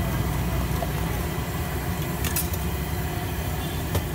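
Steady low rumble of road traffic, with two short clicks: one about two seconds in and a louder one near the end.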